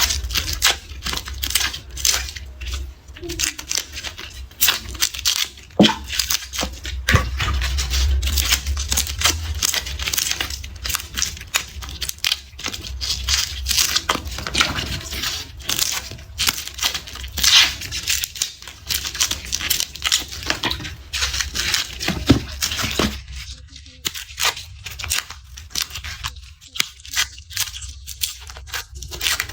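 Dry, papery garlic skins being peeled and torn off the cloves, a dense run of crisp crackles and tearing sounds.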